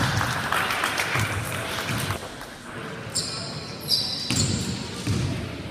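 Basketball bouncing on a wooden gym floor with repeated thuds, amid game noise and voices echoing around a large hall. A couple of short high-pitched squeaks come about three to four seconds in.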